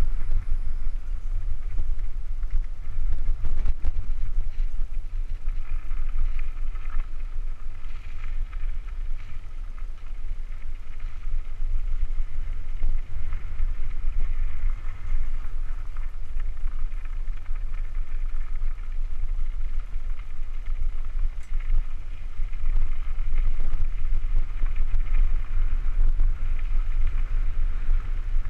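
Steady wind buffeting on the camera microphone with tyre rumble and crunch on gravel as a Cannondale Super V900 mountain bike rolls downhill.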